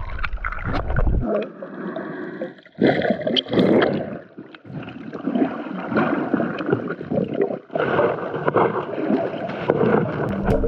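Muffled sloshing and gurgling of water heard by a camera underwater as a snorkeler swims, with brief lulls. Background music drops out about a second in and returns at the very end.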